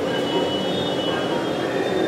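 Steady, even noise of a busy street-food kitchen, with a few faint high tones above it.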